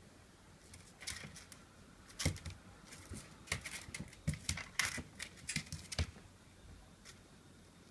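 A Pekingese puppy's claws and paws scrabbling and tapping on a playpen floor mat as it pounces and plays, a quick, irregular run of clicks and scuffs from about a second in until about six seconds in.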